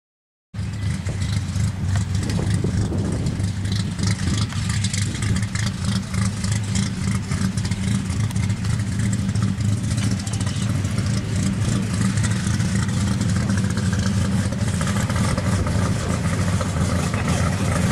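A 1970 Plymouth 'Cuda pro street car's V8 engine running as the car drives slowly by, a steady loud exhaust rumble that starts suddenly about half a second in.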